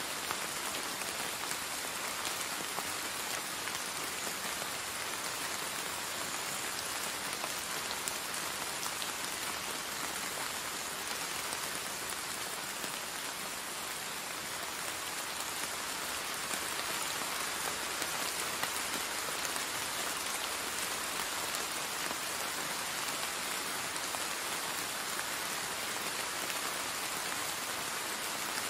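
Steady rain falling on the ground and foliage: a dense, even hiss of countless drops that holds at one level throughout.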